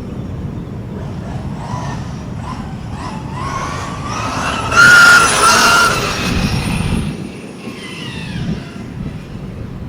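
Electric 1/5-scale short course RC truck driving fast on 8S: the motor and drivetrain whine rises in pitch as it speeds up, loudest about five seconds in as it passes close, then fades away, over a steady rush of tyres on the ground.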